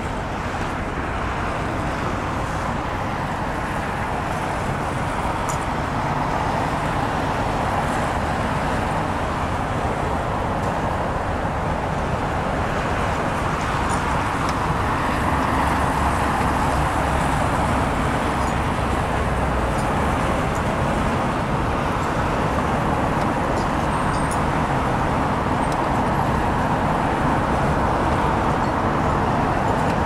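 Steady hum of road traffic, an even rumble with no single vehicle standing out.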